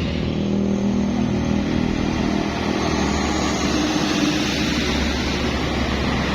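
Road traffic passing: motor vehicle engines running steadily, with a deeper engine rumble building about halfway through.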